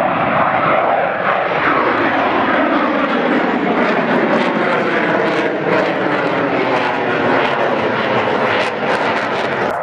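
F-16 fighter jet's single turbofan engine heard from the ground as the jet flies overhead: a loud, steady rushing jet noise with faint tones sliding slowly in pitch through it.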